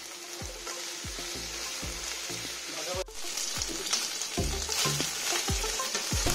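Thin beef slices sizzling in hot oil in a nonstick frying pan, stirred and turned with a slotted spatula; the meat's released water has cooked off and it is now browning on both sides. The sizzle gets louder about three seconds in, over background music with a steady beat.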